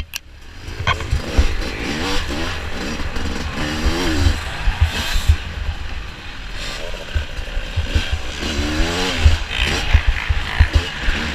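Dirt bike engine revving up and down repeatedly while being ridden, with frequent low thumps hitting the microphone and a sharp click at the very start.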